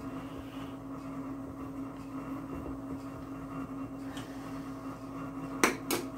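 Steady hum of a running appliance or fan in a small room, then two sharp knocks near the end as a plastic measuring cup is knocked and set down on the table after the flour is tipped into the bowl.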